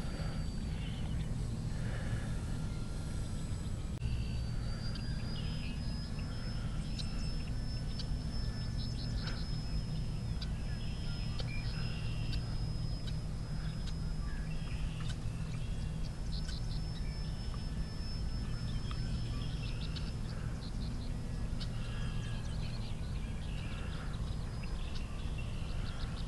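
Birds chirping in short, scattered calls over a steady low rumble, with a thin, steady high whine that comes in about four seconds in.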